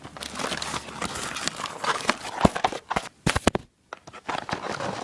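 Items and plastic packaging rustling and knocking as they are handled, with a quick run of sharp clicks and knocks about two and a half to three and a half seconds in. The sound then drops out briefly just before four seconds in.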